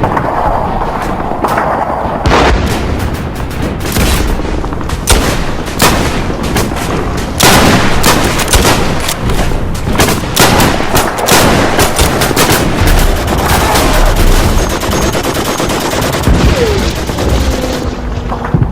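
Battle sound effect of a WWI charge: dense, continuous rifle and machine-gun fire with heavy booms, thickest in the middle, and a falling tone near the end.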